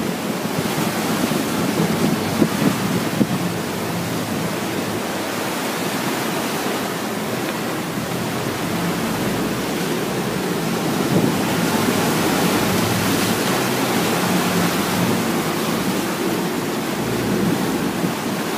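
Steady rush of a boat's churning wake and open-sea water, with wind buffeting the microphone and a low engine drone underneath as the boat runs.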